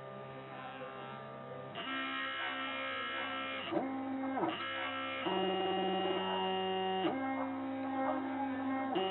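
Stepper motors of a DIY GRBL CNC mini router whining at steady pitches as the axes move. The pitch jumps to a new note every one to two seconds, with short sweeps up and down as the motors speed up and slow down. Under it runs the buzz of the small spindle motor.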